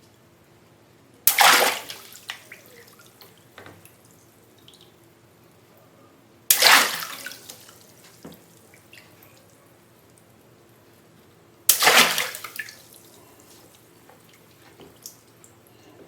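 Water balloons bursting three times, about five seconds apart, each a sudden splash of water that tails off into dripping.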